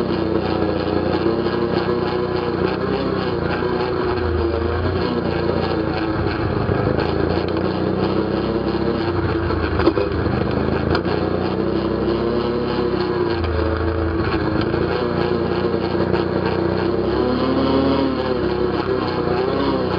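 ATV engine running under way, its pitch rising and falling several times as the throttle opens and closes, with a sharp knock about halfway through.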